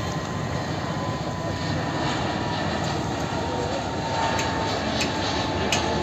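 Jet airliner's engines running steadily as it rolls along the runway: a constant rushing noise with a thin steady whine. From about four seconds in, sharp knocks from nearby road construction cut in, about one every two-thirds of a second.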